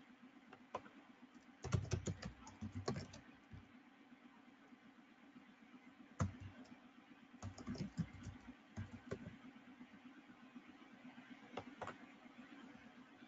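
Typing on a computer keyboard in two short bursts of keystrokes, with a few single clicks between them, over a faint low steady hum.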